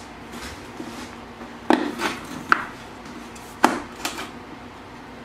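Inline skate frame and its large wheels being handled and fitted, giving a handful of sharp clacks and knocks of hard parts against each other. The two loudest come about one and a half and three and a half seconds in.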